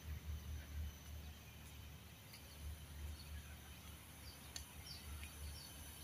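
Faint outdoor park ambience: a low, uneven rumble of wind on the microphone, with a few short, high bird chirps in the second half and a faint steady high insect hum.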